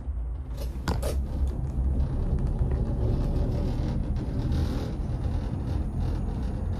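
Low, steady rumble of a moving ride heard from inside, with a few sharp clicks about a second in.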